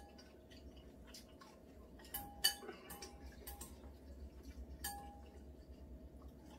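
Chopsticks clinking against ceramic bowls while eating noodles: two sharp clinks a little after two seconds in and another near five seconds, each with a short ring.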